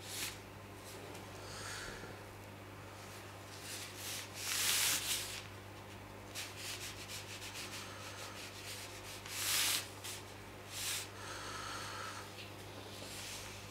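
Ink painting brush being worked on paper and on its dish: a series of short, soft rubbing and brushing noises, the two loudest about four and a half and nine and a half seconds in, over a steady low hum.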